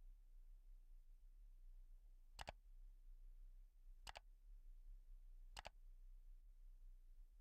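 Near silence with a low steady hum, broken by three faint mouse clicks about a second and a half apart.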